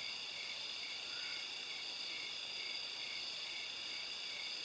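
Crickets trilling steadily, a high-pitched drone with a faint regular pulse.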